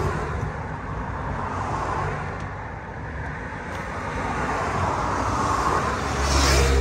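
Road traffic going by as a steady wash of noise, with one vehicle passing loudest near the end.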